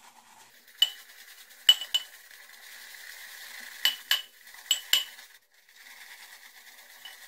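Omega Hi-Brush synthetic shaving brush whisking Cella cream into lather in a large bowl: a soft steady swishing broken by about seven sharp clinks as the brush knocks against the bowl's sides. The bowl is too big for this brush, so it knocks about too much.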